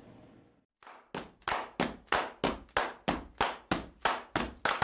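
Rhythmic clapping: a steady run of about thirteen claps, roughly three a second, starting about a second in.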